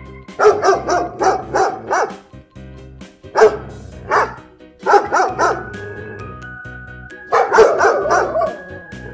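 A dog barking in groups: a quick run of barks near the start, single barks a little past three and four seconds, then more runs at about five and seven seconds. Light background music plays underneath.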